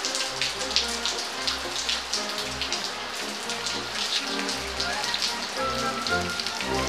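Steady rain falling on a tiled patio, with many separate drops striking close by.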